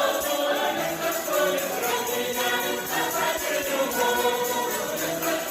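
Folk choir singing together, with jingling percussion such as a tambourine or bells keeping time.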